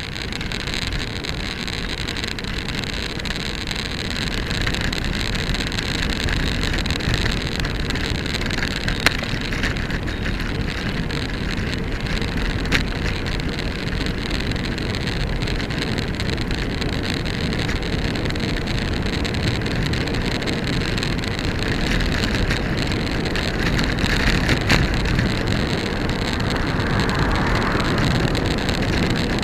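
Bicycle ride: steady wind rumble on the camera's microphone mixed with tyre and road noise as the bike rolls along, with a few sharp clicks or knocks from bumps spread through.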